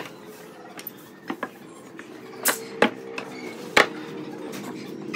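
Wooden knocks and clacks as thick pine blocks are set down and shifted on a workbench over steel pipe clamps: about half a dozen separate sharp knocks, the loudest about two and a half, three and four seconds in.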